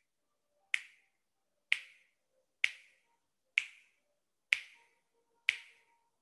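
Finger snaps at a steady pace of about one a second, six in all, sharp and clear: counting off the seconds of a held breath during a hypopressive exercise.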